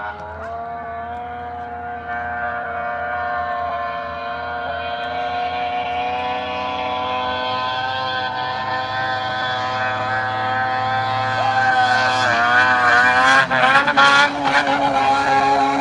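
Snowmobile engine held at high revs as the sled skims across open river water, a steady high engine note that grows louder as it approaches. In the last few seconds the revs waver up and down.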